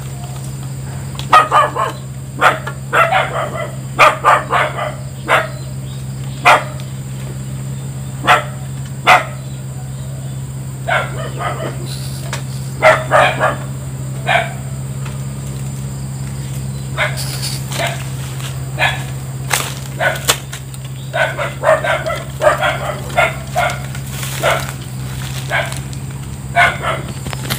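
Dog barking repeatedly, in bursts of quick, sharp barks with pauses between, over a steady low hum.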